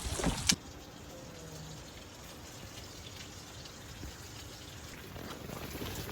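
A few quick knocks and clinks of dishes, then a faint, steady patter of rain on the tent.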